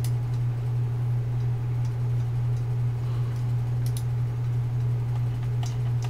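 Steady low electrical hum, unchanging, with a few faint, short clicks scattered through it.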